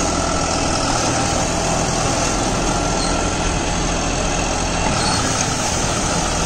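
John Deere 5405 CRDI tractor's common-rail diesel engine running steadily while it drives a Shaktiman Tusker rotary tiller mulching banana stems. The engine holds an even note under the load, running free and unstrained.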